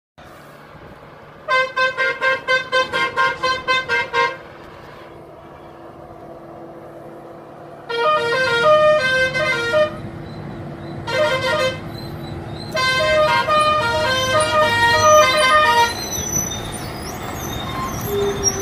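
Vehicle horn honking: a quick run of about a dozen short toots, about four a second, then after a lull longer runs of toots that shift between pitches, like a multi-tone musical horn.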